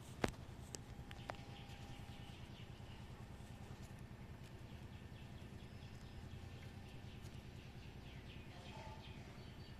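Quiet outdoor ambience: a steady low hum with scattered faint high chirps. A sharp click comes just after the start, followed by two softer clicks within the next second.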